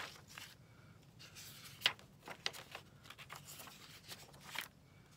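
Sheets of printed paper rustling and flicking as they are handled and shuffled through, in short scattered bursts, the loudest about two seconds in.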